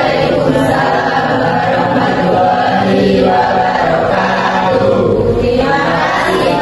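A whole class of students answering together in a chanted unison, the drawn-out reply to an Islamic greeting, "Waalaikumsalam warahmatullahi wabarakatuh", followed near the end by "Terima kasih, Pak", thanking the teacher.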